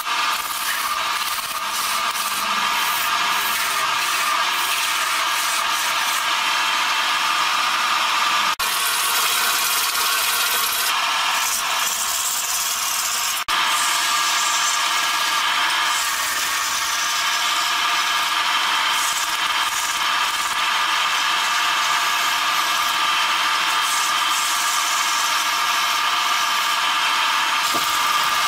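A large wood lathe spinning a long log while a hand-held chisel cuts grooves into it: a steady scraping hiss of steel on turning wood, with a faint hum under it. It breaks off for an instant twice.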